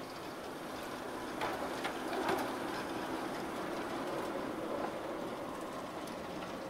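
British Rail Class 08 diesel shunter running slowly past at close range, its engine humming steadily, with a few clicks and clanks from about one and a half to two and a half seconds in.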